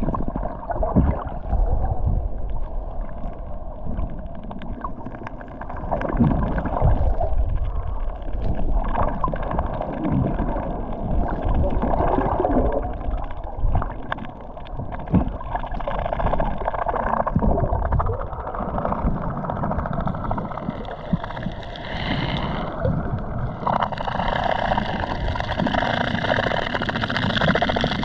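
Muffled rumbling and gurgling of moving water, with irregular knocks.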